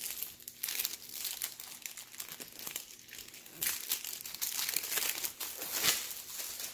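Packaging crinkling and rustling in irregular handfuls as the next diamond painting kit is handled and unwrapped, easing off just before the end.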